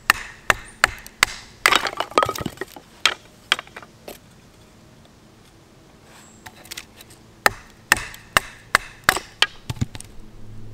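Wood being split for kindling with a Neanderthart Lusievo bushcraft knife: the blade is driven down through a small stick on a wooden stump with repeated sharp knocks. The knocks come in two runs, two or three a second, with a pause between them, and the wood cracks open about two seconds in.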